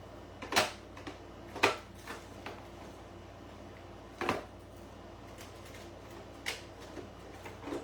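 Five separate sharp clicks and knocks spread across a few seconds as small craft-supply containers are handled.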